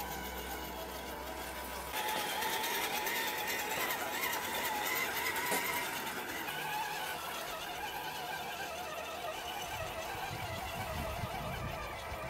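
Electric motor and gearbox of a scale RC Land Rover Defender crawler truck whining, the pitch wavering up and down with the throttle. The sound changes abruptly about two seconds in.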